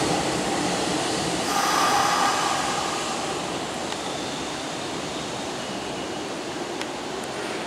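Hanshin 8000-series electric train pulling out of the station and rolling away, its running noise slowly fading. A brief whine shows in it about one and a half seconds in.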